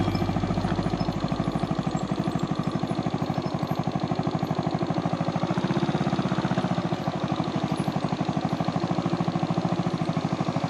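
Brixton Felsberg 250's single-cylinder four-stroke engine running steadily as the motorcycle is ridden slowly over grass, with an even, regular beat of firing pulses.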